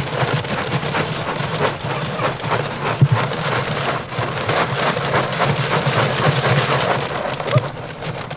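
Dry cat food kibble pouring and scattering out of a torn bag, a dense spill of many small clicks, with a sharper knock about three seconds in.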